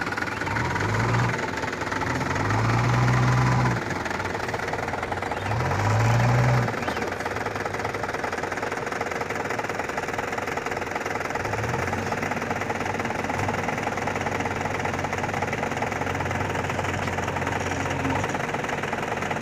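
Diesel tractor engine of a Mahindra 475 DI stuck in mud with a loaded trolley, revving up three times in strong surges as it strains under load. After about seven seconds it settles into steady diesel engine running, with the JCB backhoe loader's engine nearby.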